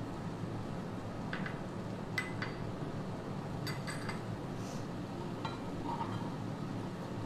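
Light kitchenware clinks and taps, about six spread through, as spice is added to a pan of melted butter and stirred with a wooden spoon, over a steady low hiss.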